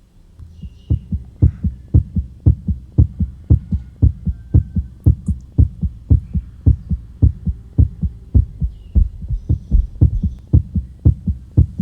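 Human heart sounds heard through a stethoscope during cardiac auscultation: a steady run of low paired thumps (lub-dub), starting about half a second in.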